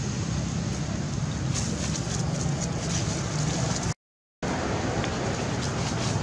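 Steady low rumbling background noise with faint crackles between about a second and a half and three and a half seconds in. The sound cuts out completely for about half a second around four seconds in, then resumes.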